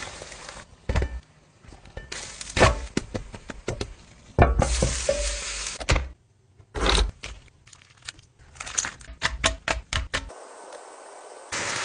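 Kitchen cooking sounds in quick succession: food sizzling in a frying pan, with sharp clicks and knocks of utensils against the pan and a wooden board. The bursts of sizzling start and stop suddenly.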